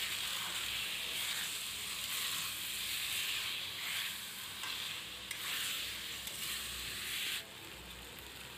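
Chicken in a thick onion-tomato masala sizzling in a kadai while a spatula stirs it. The sizzle drops quieter about seven seconds in.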